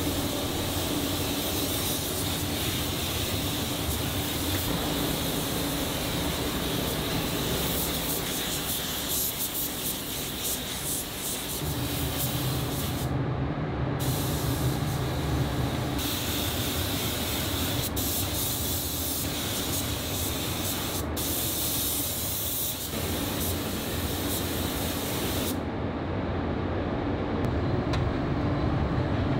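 Compressed-air paint spray gun hissing steadily as it coats a steel frame, over a steady low hum. Near the end the hiss stops and a forklift's running motor takes over.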